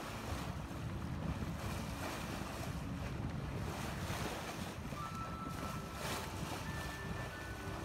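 Wind buffeting the microphone over water rushing and hissing along the hull of an Island Packet 420 sailboat under sail, its bow wave breaking alongside.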